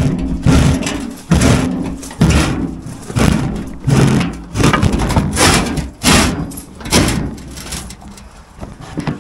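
Loaded wheelbarrow rolling along wooden planks, its wheel rumbling and the load of concrete lintels knocking, with a rough surge of noise about once a second as it is pushed, easing off near the end.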